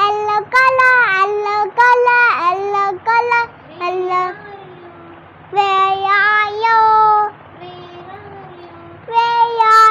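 A young child singing in short high-pitched phrases with pauses between them, over a faint steady low hum.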